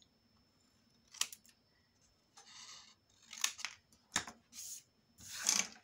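Small scissors snipping white cardstock in a series of short cuts, the first about a second in, trimming its corners at an angle.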